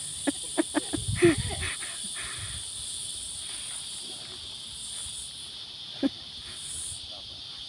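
Steady, high-pitched chorus of insects singing, with a few sharp clicks in the first two seconds and one more about six seconds in.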